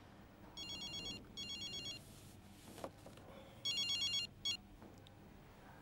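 Mobile phone ringtone: a high electronic trilling melody in short bursts, two about a second in and another around four seconds in, with a brief final blip before it stops as the call is answered.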